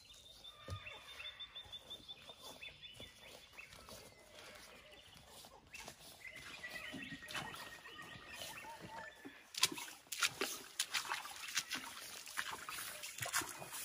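Bush birds calling and chirping in the background. From about two-thirds of the way in come footsteps crunching on creek stones and through shallow water, growing louder as the walker comes close.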